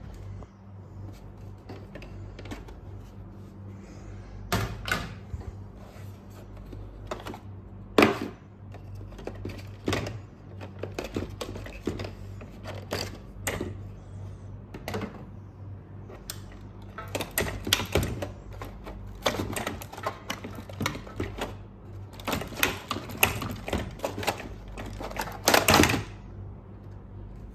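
Irregular sharp clicks and knocks, a few at a time and busiest in the second half, over a steady low hum.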